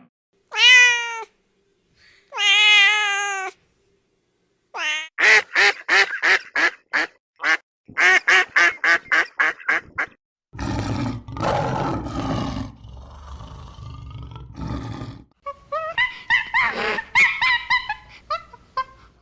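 A run of different animal calls. Two drawn-out pitched calls come in the first few seconds, then a quick series of short repeated calls, about two or three a second. After that comes a rougher, noisier stretch with a deep low end, and more pitched calls near the end.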